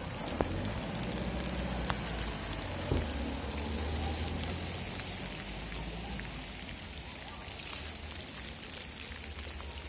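Citroën Jumper van driving past on a wet road: a low engine rumble with the hiss of tyres on wet asphalt, loudest as it passes about four seconds in, then fading.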